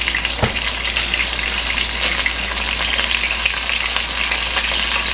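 Chicken meatballs sizzling in shallow oil in a frying pan, a steady crackling hiss, with one light knock about half a second in as metal tongs turn them.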